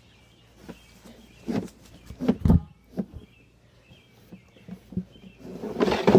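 A plastic tub bumping and knocking on a wooden deck as a child climbs in and shifts it forward, with a heavy thump about two and a half seconds in. Near the end it scrapes and rumbles as it tips over the edge of the steps. Birds chirp faintly in between.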